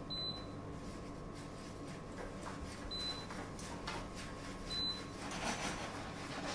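Three short high beeps from an induction hob's touch controls: one at the start, one about three seconds in and one near five seconds. They are the sound of the hob being switched on and set. Faint clicks and knocks come in between.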